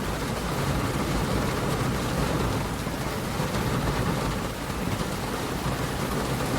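Steady rain from a film soundtrack, a continuous hiss with a low rumble underneath.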